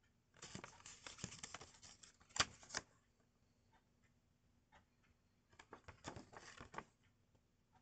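Paper rustling and crinkling as a small folded paper pocket timetable is handled and opened out, ending in two sharp crackles about two and a half seconds in. A second, shorter stretch of rustling and crinkling comes about six seconds in, as the card is handled together with a clear plastic sleeve.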